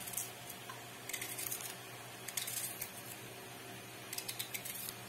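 Slices of red onion being pulled apart into rings by hand, the crisp layers crackling in three short spells of quick clicks, faint over a steady low hum.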